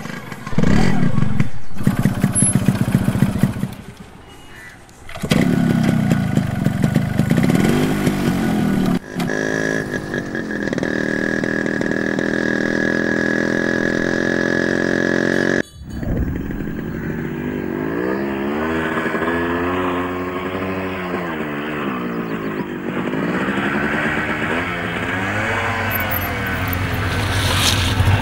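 Motorcycle engine running through a series of cuts. It opens with short bursts of revving, holds a steady cruise with a high whine in the middle, then revs up and down repeatedly for the rest of the stretch.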